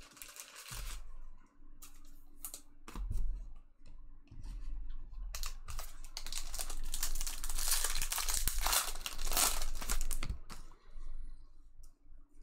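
A foil trading-card pack wrapper is torn open and crinkled by hand, most intensely over a few seconds in the second half. Before that there are scattered light taps and clicks of cards and packs being handled.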